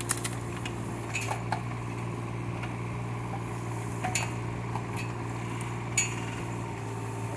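Kubota K008 mini excavator's diesel engine running steadily, with a handful of sharp clicks and knocks as the bucket works among the roots of a bush, the loudest about six seconds in.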